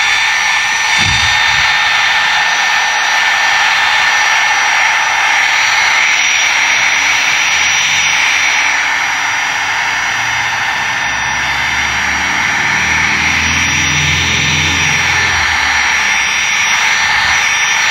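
Milwaukee cordless drill running steadily at high speed, spinning a foam polishing pad against a plastic headlight lens: a steady high motor whine over a hissing rush of the pad on the lens. This is the compound-polishing stage of a headlight restoration after wet sanding.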